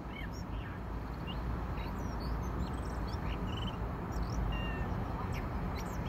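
Male common blackbird singing quietly: scattered short, high chirps and brief whistled notes of many different shapes, which sound like several different birds. A steady low rumble runs underneath.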